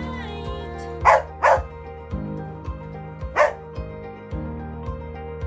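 A dog barks three times, twice in quick succession about a second in and once more a couple of seconds later, over steady background music with a regular bass line.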